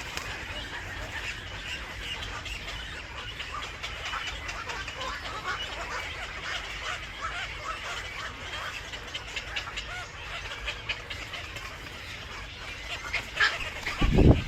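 Birds chirping in a steady stream of short, high calls. A loud, low thump comes near the end.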